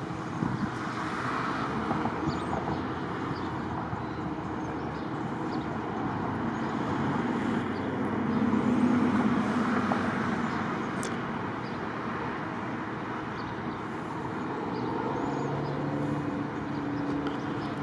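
Fire engine driving past: a steady engine and tyre sound that grows louder and is loudest about nine seconds in as the truck passes close, then eases off.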